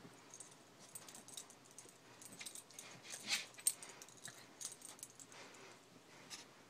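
A small shaggy dog lunging and snapping at a laser pointer dot, making a run of quick, irregular light clicks and rattles, loudest about halfway through.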